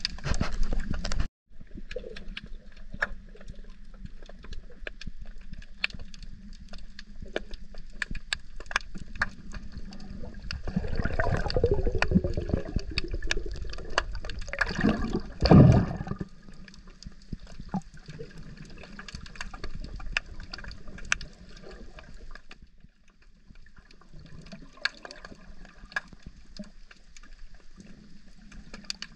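Underwater sound of the sea picked up by a submerged camera while snorkelling: a steady crackle of small clicks over a low water hiss. The water surges louder a little before halfway, and there is a brief loud rush about halfway through.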